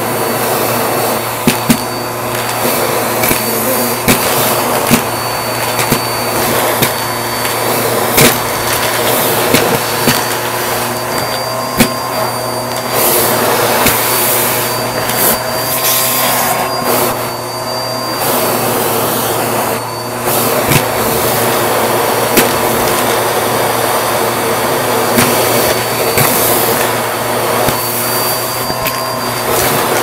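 Bissell vacuum cleaner running through its hose and plastic crevice tool on a shag rug: a steady motor hum with a high whine. Irregular sharp clicks and rattles sound over it as coins and grit knock against the nozzle.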